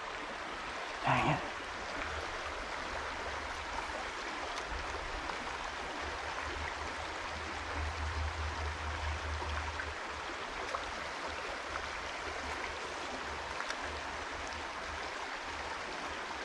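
Small creek running steadily, a constant rush of flowing water. A low rumble swells under it for a couple of seconds about eight seconds in, and there are a few faint ticks.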